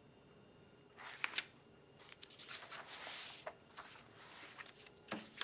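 Faint rustling and handling noises in soft bursts: a short one about a second in, a longer stretch around three seconds, and a brief one near the end.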